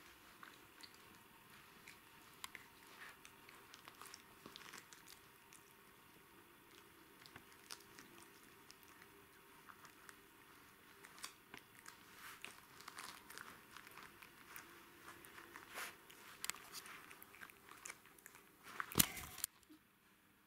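Puppies gnawing and biting on a plastic-and-rope chew toy: faint, irregular clicks and crunches of teeth on the toy, growing busier in the second half, with one brief louder burst of noise near the end.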